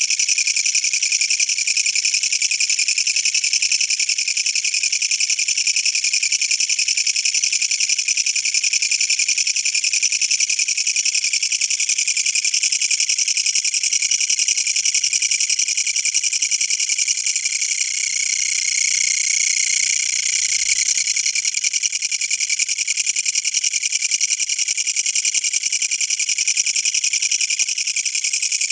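Kutsuwamushi (Japanese bush katydid, Mecopoda niponensis) singing at close range: a loud, continuous, rapid rattling buzz, high-pitched, that keeps going without a break.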